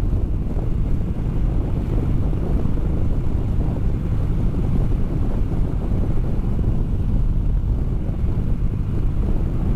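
Steady wind rush and buffeting on a helmet-mounted microphone on a motorcycle at about 60 mph, with a dense low rumble of road and engine underneath. The rider likens the wind noise to standing on a windy beach.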